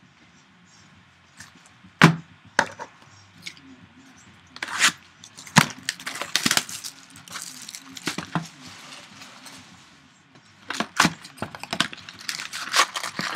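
Clear plastic shrink-wrap being torn and peeled off a cardboard trading card box, crinkling and crackling in irregular spurts, with one sharp knock about two seconds in that is the loudest sound.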